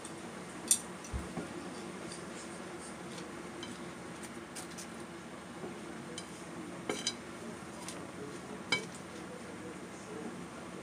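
Long wooden cooking chopsticks clicking against a pot and its ingredients: a few sharp knocks spread through, the loudest near the start, over a steady low hum.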